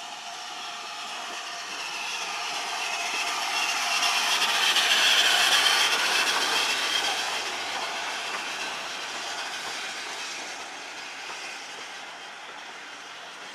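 BR Standard Class 5 4-6-0 steam locomotive No. 73096 running in past the platform with its coaches. The sound swells to a peak about five seconds in as the engine goes by, then fades as the coaches follow.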